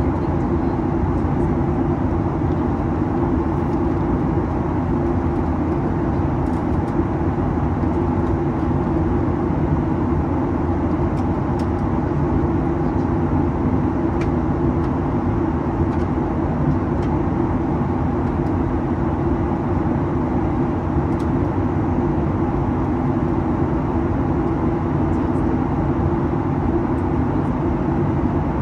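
Steady cabin noise of a Boeing 737-800 in flight: the drone of its CFM56 engines and the rush of air along the fuselage, heard from a seat near the front, with a few faint ticks.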